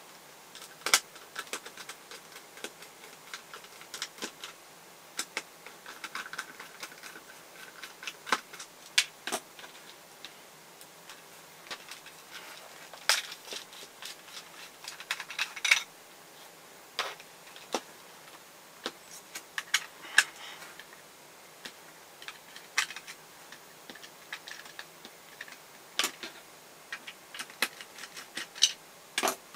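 Irregular small clicks and taps of hand disassembly: a screwdriver working screws out of a cordless screwdriver's plastic housing, with plastic parts and small tools handled and set down on a hard table.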